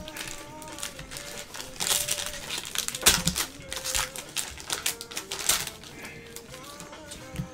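Trading-card pack wrappers crinkling and tearing as packs of football cards are ripped open, loudest in the middle. Faint background music runs underneath.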